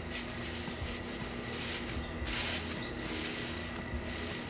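Plastic bags rustling and crinkling as they are wrapped and tucked around a bicycle's fork and handlebar stem as masking, with louder rustles about two and three seconds in.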